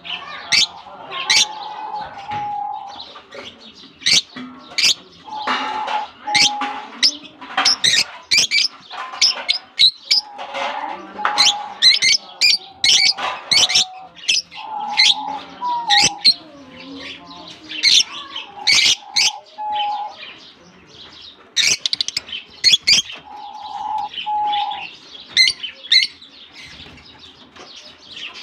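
A flock of lovebirds chirping busily, a steady stream of sharp, shrill calls in quick succession. Shorter, lower held notes break in every few seconds.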